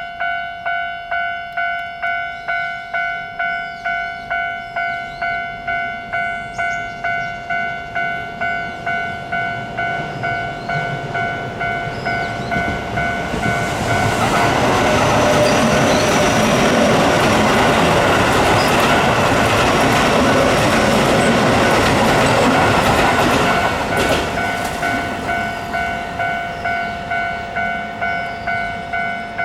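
Japanese level-crossing warning bell ringing at about two strokes a second. A Keio Line train passes through the crossing midway for about ten seconds, its rumble and wheel clatter drowning the bell, which keeps ringing after the train has gone.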